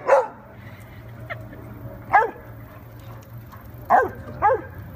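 A dog play-barking at another dog: short, sharp barks that drop in pitch, one right at the start, a faint one about a second in, another about two seconds in, and two close together near the end.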